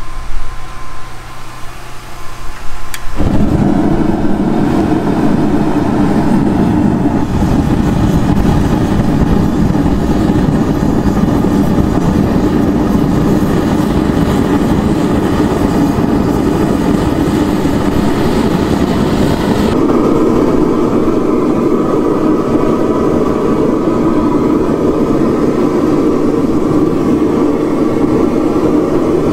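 Homemade propane forge burner running with a steady rushing of gas and flame as the steel heats back up toward welding heat. It jumps louder about three seconds in, and its tone shifts, losing some hiss, past the middle.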